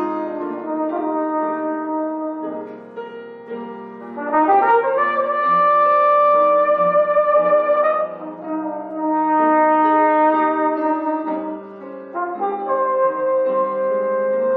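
Flugelhorn and grand piano playing a slow melody. The horn holds long notes of a few seconds each over piano chords, with brief pauses between phrases.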